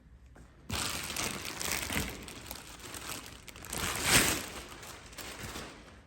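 Shipping packaging being opened and handled: crinkling and rustling that starts under a second in and comes in uneven swells, loudest about four seconds in.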